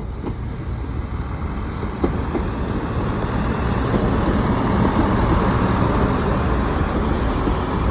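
Class 166 diesel multiple unit arriving: a steady rumble of its diesel engines and wheels on the rails that grows louder partway through.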